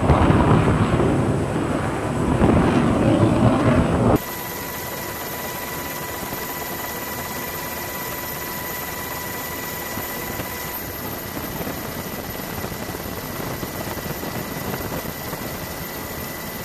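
Wind rushing over the microphone at sea, cut off abruptly about four seconds in. A steadier, quieter aircraft cabin noise follows: an even rush with a few faint steady whines, as from filming from the air.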